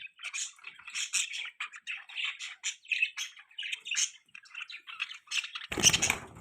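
Baby budgie chirping and squawking in a rapid, continuous run of short high calls. Near the end a brief loud rustle or bump, likely handling noise, briefly covers the calls.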